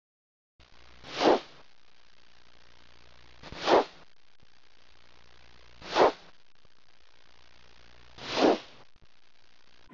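Four whoosh sound effects about two and a half seconds apart, each swelling up and cutting off quickly, over a faint steady hum.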